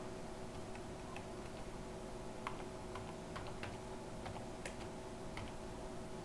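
Computer keyboard keys clicking faintly as a name is typed: about a dozen uneven keystrokes.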